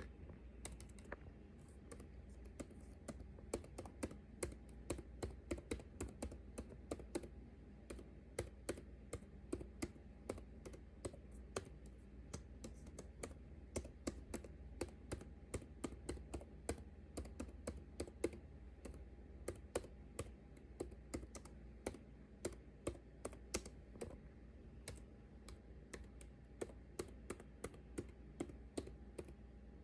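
Typing on a computer keyboard: a steady, irregular run of soft key clicks, several a second, with brief pauses between bursts.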